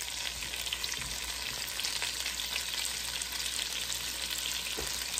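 Onion wedges sizzling steadily in the hot fat left from browning Cornish hens, in an enameled cast-iron Dutch oven, with a constant fine crackle.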